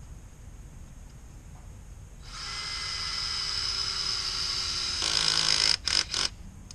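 Cordless drill-driver driving a screw: the motor starts about two seconds in with a steady whine, gets louder as it bears down, stops, then gives two short bursts.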